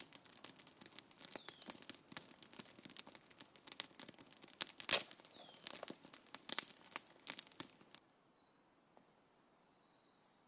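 Dense crackling and rustling with many sharp clicks and one loud snap about five seconds in; it stops abruptly about eight seconds in.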